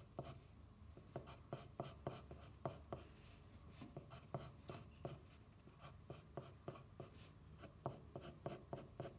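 Pencil scratching faintly on paper in short, quick shading strokes, a few a second and unevenly spaced.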